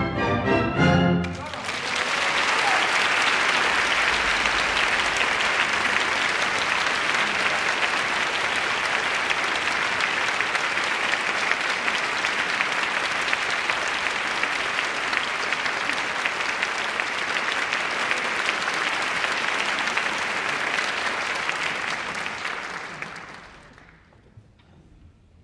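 An orchestra ends on a final chord about a second in, then an audience applauds steadily for about twenty seconds before the clapping dies away near the end.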